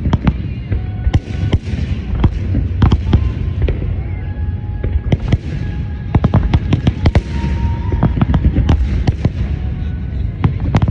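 Aerial fireworks display: shells bursting in quick, irregular, overlapping bangs with crackle, over a continuous low rumble.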